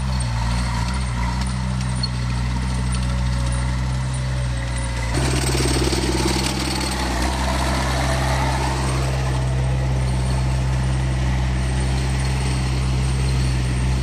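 Tracked skid steer loader's engine running steadily while it carries a heavy log section; about five seconds in the engine note shifts and grows louder, and it stays that way.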